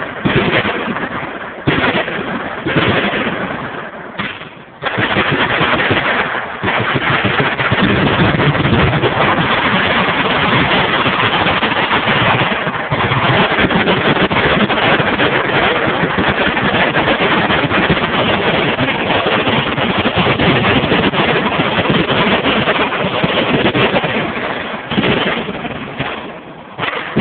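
Heavy automatic gunfire from many machine guns. A few separate loud blasts ring out and die away in the first five seconds, then give way to a continuous din of massed fire that eases near the end.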